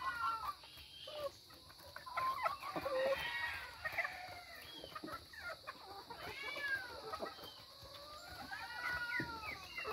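Chickens clucking and calling over and over while they feed, with a few sharp taps of beaks pecking into halved coconuts.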